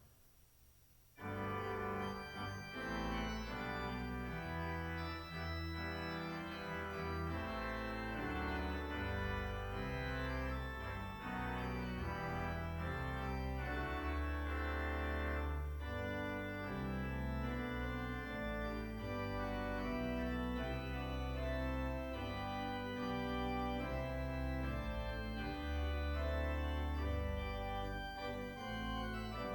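Organ playing held chords over a moving bass line, starting suddenly about a second in after near silence.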